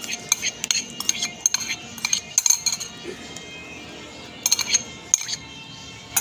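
Sharp metallic clinks in quick irregular clusters, a small tin of cat food being tapped and shaken to empty it, over steady background music.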